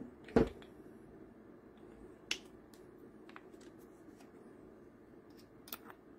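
Sharp handling clicks of a cordless drill's chuck with its metal bits and socket being fitted and taken out. One loud click comes about half a second in, another about two seconds later, and a few lighter ticks follow.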